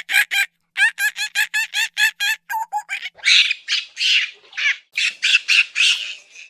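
Monkey calling: a rapid run of short, pitched chattering calls, about four a second, then louder, harsher screeches in the second half.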